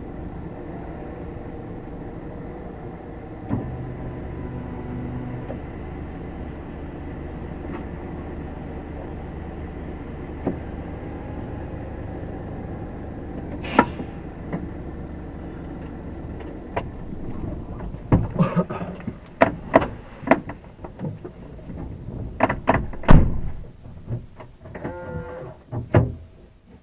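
Diesel engine of a stationary lorry idling with a steady low hum, heard from inside the cab. In the last several seconds a series of sharp knocks and clicks from within the cab comes over it.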